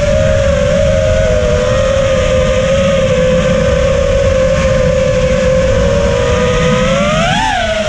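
FPV quadcopter's electric motors whining at a steady pitch, swooping up and back down once near the end as the throttle is opened and eased off. Wind rushes over the onboard microphone underneath.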